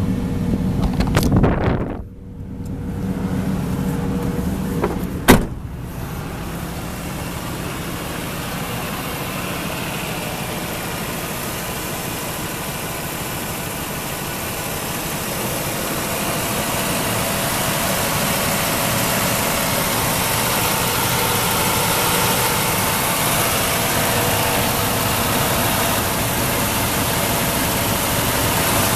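Ford F-250 Super Duty pickup engine idling steadily, with one sharp bang about five seconds in. The idle grows a little louder after about fifteen seconds, heard close to the open engine bay.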